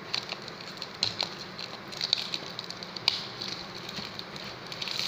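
Packaging of a smartphone box being handled over newspaper: irregular rustling and crackling with several sharp crackles, as the wrapping is worked off the box.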